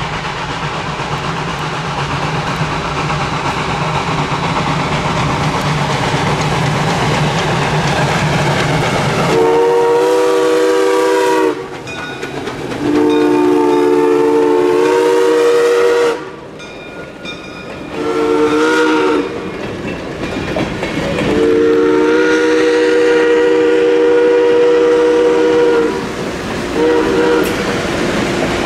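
Baldwin 0-6-0 steam switcher locomotive approaching with a steady working noise, then blowing its steam whistle, several notes sounding together, in long, long, short, long blasts, the grade-crossing signal, with one more brief toot near the end. Passenger coaches clatter past over the rail joints at the close.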